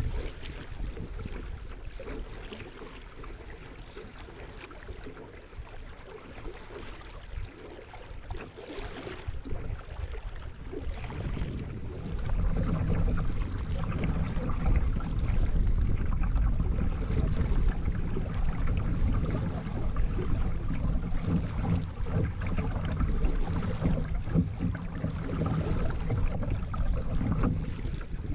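Kayak on a flowing river: water rushing and lapping close to the hull, with a low rumble that grows louder about halfway through.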